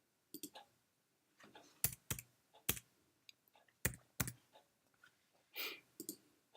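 Faint, irregular keyboard clicks of typing, a few sharp taps among softer ones, as on a touchscreen keyboard.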